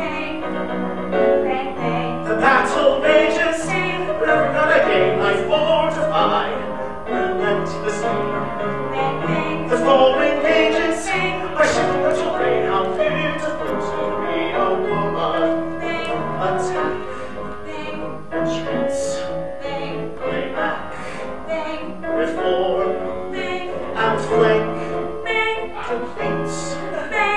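Musical-theatre number: piano accompaniment with singing.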